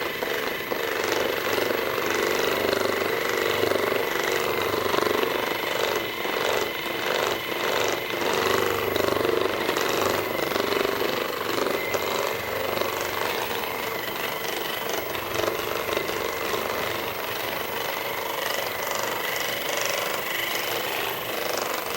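Percussive massage gun running steadily: a rapid hammering buzz with a constant high whine.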